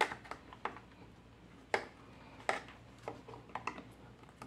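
Scattered small clicks and taps of pliers on an electric shower's plastic housing and metal parts as the controller is worked loose, with two louder clicks near the middle.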